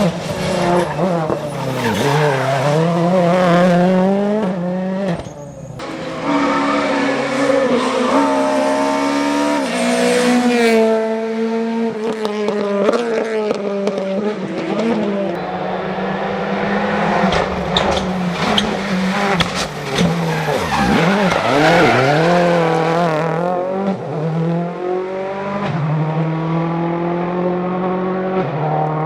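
Rally car engine at race pace, its revs climbing and falling again and again through gear changes and braking. The sound dips briefly about five seconds in.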